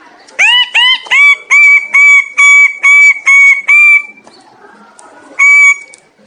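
Bird-of-paradise (Paradisaea) calling: a quick series of about nine loud, ringing notes, the first few sweeping upward and the rest held level, then one more call near the end.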